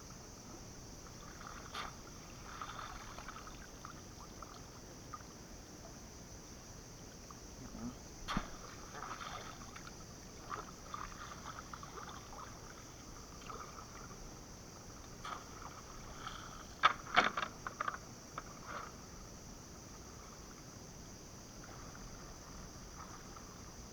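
Water sloshing and splashing softly around a wading cast-net fisherman, with a few sharp knocks and a quick cluster of clicks about two-thirds of the way through, over a steady high hiss.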